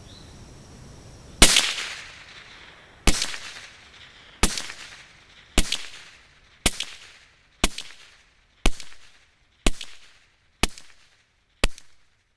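Ruger 10/22 semi-automatic .22 LR rifle firing ten single shots, each a sharp crack with a short echo. The shots come slowly at first and then settle into a steady pace of about one a second.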